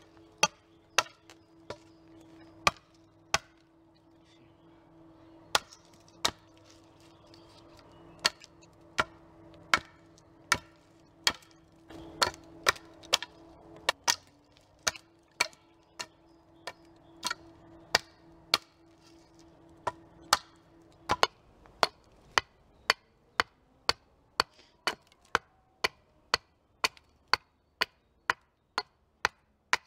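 Hatchet chopping into an upright wooden pole on a stump chopping block: a series of sharp wooden strikes, irregular at first, then a steady run of nearly two a second in the last third.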